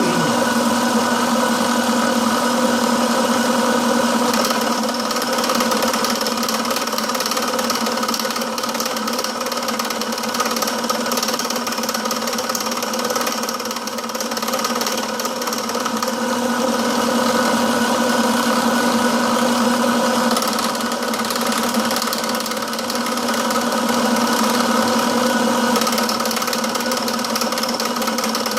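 Milling machine running steadily, its motor and spindle giving a constant hum, while the tool bit cuts a steel part clamped to a rotary table with a continuous rough chatter.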